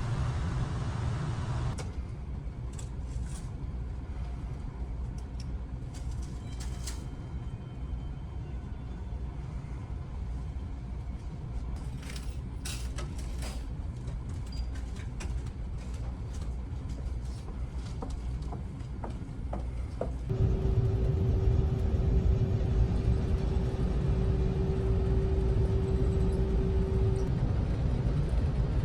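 Ferry's engines rumbling low and steadily, with scattered light clicks and knocks. About two-thirds of the way through, the rumble steps louder and a steady hum joins it for several seconds.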